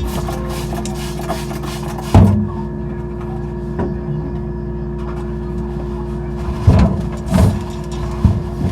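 A few clunks and knocks of items and fittings being handled in a refrigerator, the loudest about two seconds in and a cluster near the end, over a steady hum.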